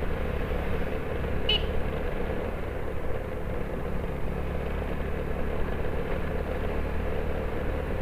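Motorcycle running at a steady pace with wind and road noise, heard from the rider's own bike.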